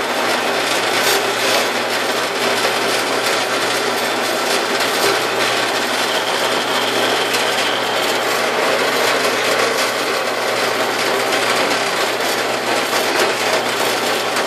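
Harbor Freight 4x6 metal-cutting bandsaw running steadily on slow speed, with a low motor hum under the rasp of the blade rubbing on the stock. The blade is barely cutting.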